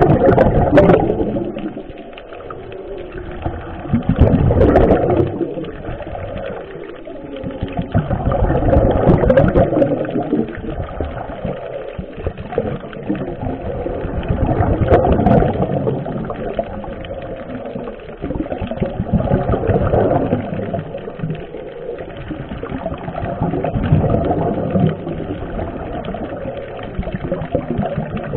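Scuba breathing through a demand regulator, heard underwater: rushing, gurgling bursts of exhaled bubbles about every five seconds, with quieter stretches between breaths.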